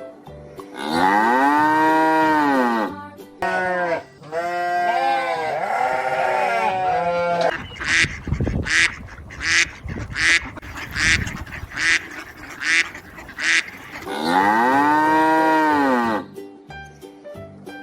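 Cattle mooing: one long moo, then several overlapping moos from more than one animal. In the middle comes a steady series of about eight short quacks, roughly one every 0.7 s, and another long moo follows near the end.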